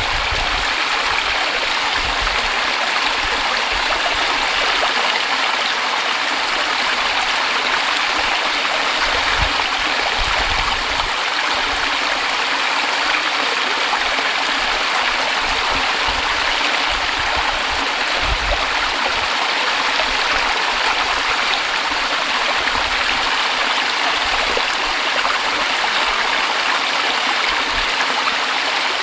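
A small mountain stream running and splashing over rocks, a steady rushing with gurgling.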